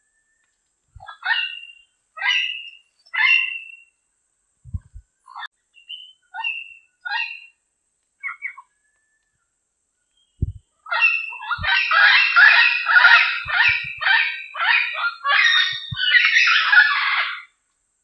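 Diademed amazon parrot calling: three loud calls about a second apart, then a few softer, shorter calls, then from about eleven seconds in a dense, rapid run of calls and chatter lasting some six seconds.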